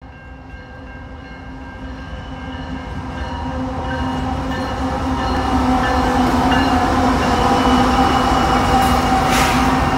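CN freight train's diesel locomotive approaching and running through a level crossing, growing steadily louder. Steady ringing tones from the crossing signal sound over it, and there is a short hiss about nine seconds in.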